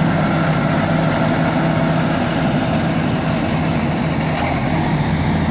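Diesel engine of a Case IH Farmall 90C loader tractor running steadily at a constant speed.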